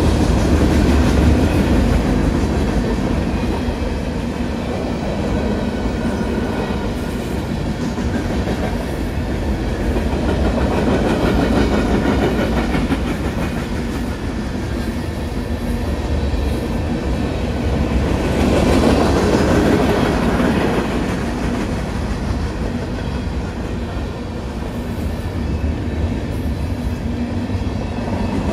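Freight cars of a mixed manifest train rolling past at a grade crossing, their steel wheels rumbling and clacking on the rails. The sound swells and eases every several seconds as different cars go by.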